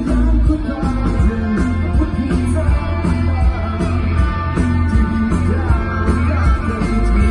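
Live rock band playing loud, with a singer, guitar and heavy bass.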